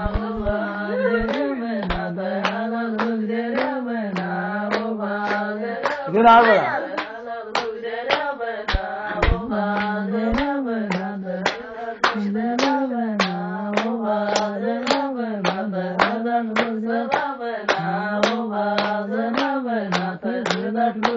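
Hand clapping in a steady beat, about two claps a second, keeping time under a wavering sung melody: dance-song accompaniment.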